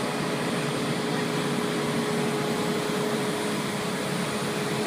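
Truck-mounted concrete pump running: a steady machine drone with one constant whine held throughout.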